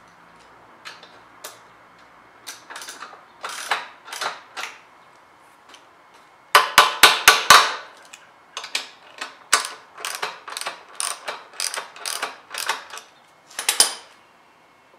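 A wrench working a moped's rear axle nut and chain adjuster to take up a loose drive chain. Metallic clicking, with a quick run of about half a dozen loud clicks around seven seconds in and scattered clicks after that.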